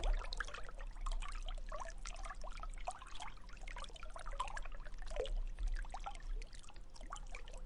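Water trickling, with many small bubbling sounds in quick succession.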